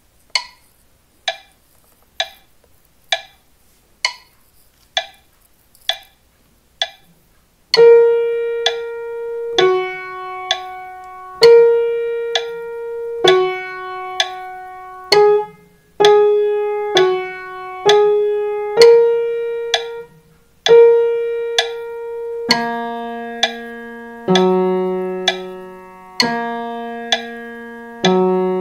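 Eight evenly spaced short clicks, just under a second apart, lead into a piano playing a slow two-note doorbell tune. A higher note and a lower note alternate, each held and left to ring. About two-thirds of the way through, lower notes come in underneath.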